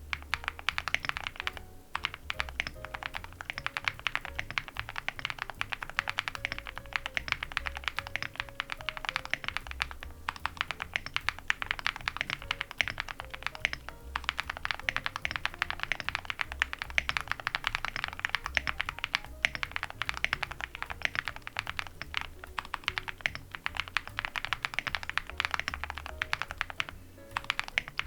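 Continuous fast typing on a mechanical keyboard with Gateron Moon Landing switches, aluminium plate, full foam and dye-sub PBT keycaps: a dense run of key clacks with a few brief pauses.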